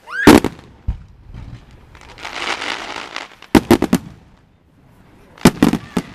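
Fireworks aerial shells bursting overhead: one loud bang near the start, then two quick volleys of four or five sharp reports, the first about three and a half seconds in and the second about two seconds later.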